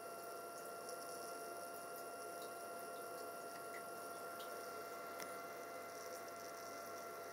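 Steady hum with a faint, even high whine and a few tiny faint ticks.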